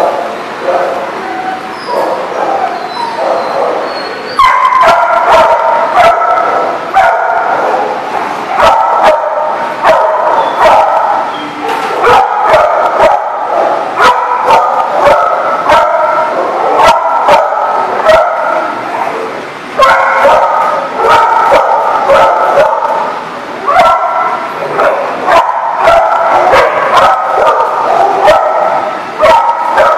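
Two dogs barking, yipping and growling in rough play, louder from about four seconds in, with many sharp clicks and knocks throughout.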